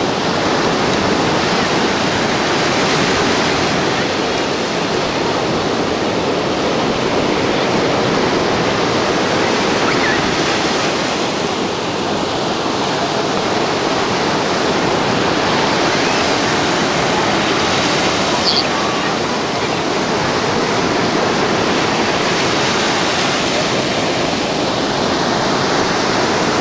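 Ocean surf breaking and washing up a sandy beach: a steady rushing noise that swells and eases with the waves.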